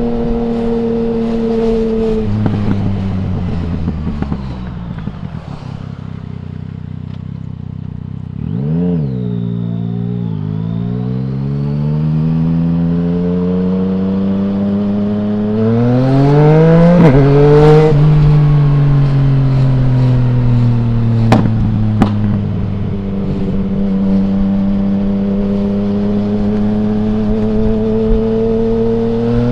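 2020 Yamaha MT-09's 847 cc inline-three engine through an Akrapovic full exhaust with no dB killer. It slows off the throttle to a low, quiet run, gives a quick blip, then pulls hard with the pitch climbing through a gear change and settles into a steady cruise, rising again near the end. A couple of sharp clicks come about three-quarters of the way through.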